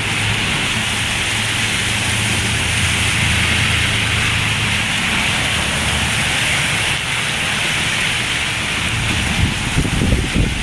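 Heavy tropical-storm rain falling steadily, a dense hiss, with a low steady hum beneath it for the first half.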